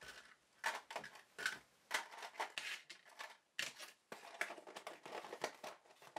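Hollow plastic pipe sleeves being gathered up and set into a clear plastic tub: a string of light, irregular plastic clicks, knocks and rustles.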